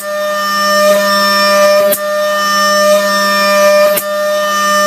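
CNC milling machine spindle with its cutter milling an aluminium block: a loud, steady whine holding one pitch, with a brief click about every two seconds.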